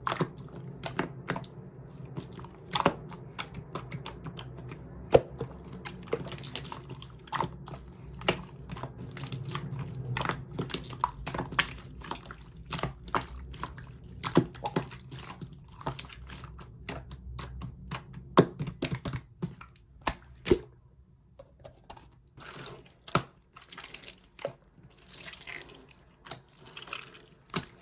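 Shaving-foam slime being squished and pressed by hand, giving a run of irregular small wet clicks and pops.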